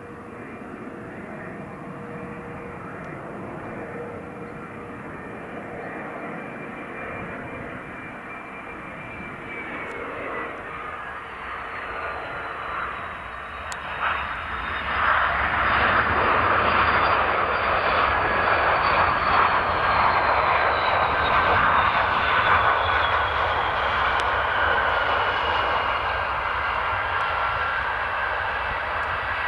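Fokker 100 jet landing, its two rear-mounted turbofans whining, with a high tone that slides down in pitch partway through. About halfway through the engine noise swells sharply and stays loud while the jet rolls out on the runway.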